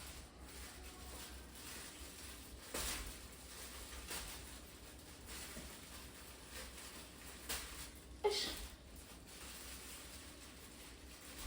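Scattered kitchen handling sounds over a low hum: a few soft knocks, and one sharper knock with a brief ringing clink about eight seconds in.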